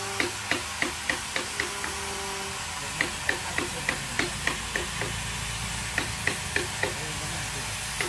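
Paintbrush scrubbing wood finish into a deeply carved wooden relief, making runs of quick ticks about three to four a second as the bristles work over the carving, over a steady low hum.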